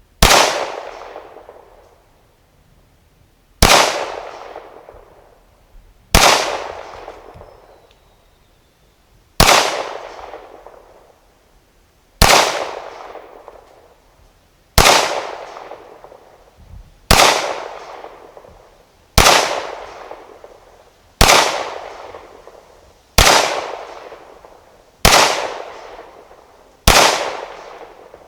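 Glock 17 Gen 4 9mm pistol fired in slow, deliberate single shots at a target, about a dozen shots two to three seconds apart. Each sharp crack is followed by an echo dying away over a second or so.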